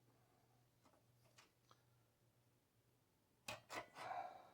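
Mostly near silence over a low steady hum, with a few faint ticks; about three and a half seconds in, a couple of sharp clicks and a short scrape as a craft knife works along the stuck cloth-tape seam between the picture tube and the metal TV cabinet.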